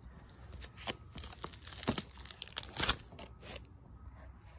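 Plastic photo-album sleeves crinkling and crackling as a page is turned: a flurry of sharp crackles lasting about three seconds.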